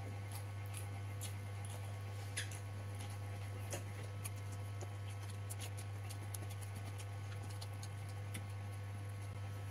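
Scattered small clicks and smacks of eating rice by hand from a paper wrapping, as the fingers work the food and the mouth chews, over a steady low hum.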